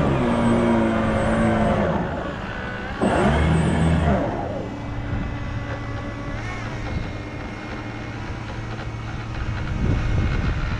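Radio-controlled model boat motors running with a changing pitch, loudest in the first four seconds with a second surge about three seconds in, then settling to a quieter steady hum.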